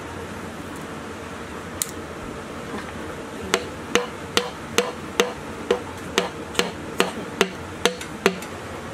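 Hammer blows on a wooden drift held against a cylinder liner, driving the liner down into a diesel engine block. After a single light tap, a steady run of about a dozen sharp knocks starts about three and a half seconds in, two or three a second, each with a short ring.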